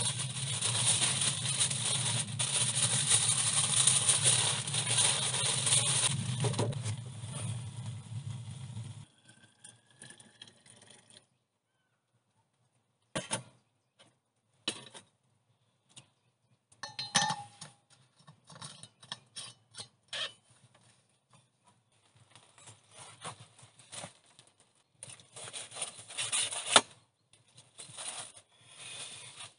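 Aluminium foil crinkling and rustling as it is pulled from the roll and wrapped around food, a dense steady noise for about the first nine seconds. After a short silence come scattered crinkles and clicks as the foil packets are handled, with one sharp click near the end.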